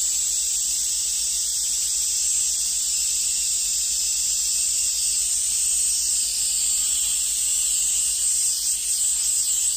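Airbrush blowing a steady jet of compressed air over alcohol ink on paper: an even, high hiss that does not let up.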